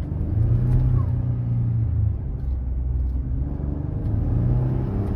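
Ford F150 Tremor's 3.5 L twin-turbo EcoBoost V6 running, a steady low drone that starts suddenly.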